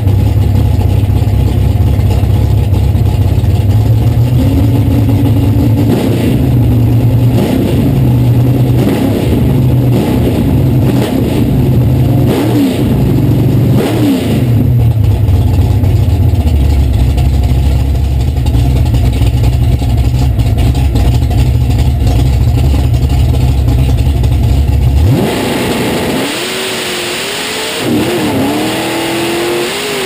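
Big-tire drag car's engine heard from inside the cockpit, running with a heavy low rumble and rising and falling revs while staging. About 25 seconds in the sound changes abruptly as the car launches, the engine note climbing.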